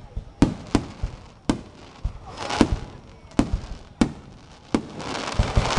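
Aerial fireworks bursting overhead: a run of sharp bangs, one every half second to a second, mixed with deeper thumps, and crackling about two and a half seconds in and again near the end.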